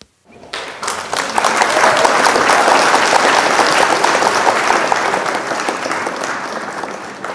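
Applause from many clapping hands, swelling over the first second or so and holding steady, then easing slightly before cutting off suddenly at the end.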